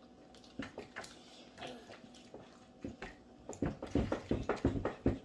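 Handling noises from hands and paper taco wrappers on the table: scattered light clicks and rustles, then a quick run of soft knocks in the last second and a half.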